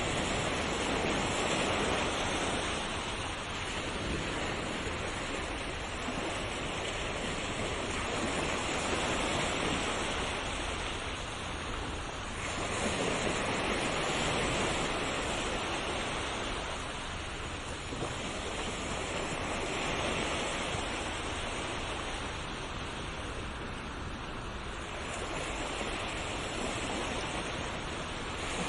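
Ocean waves breaking and washing up on a shore, a steady rush that swells and eases every few seconds as each wave comes in.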